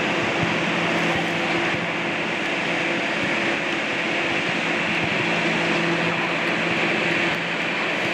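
Steady fan drone of the inflation blowers in an air-supported sports dome: an even hiss with a low, constant hum, and a few faint knocks in the first second.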